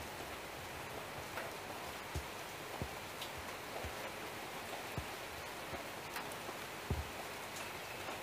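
A steady hiss with a few faint, short low knocks scattered through it.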